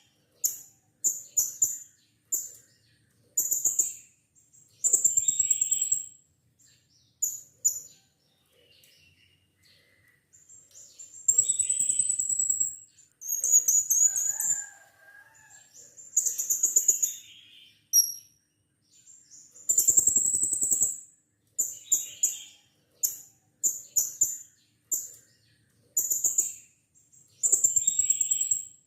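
Blue-crowned hanging parrot (serindit) calling: runs of short, shrill, very high-pitched chirps, with a few longer trilled notes, broken by a pause of a few seconds about a third of the way in.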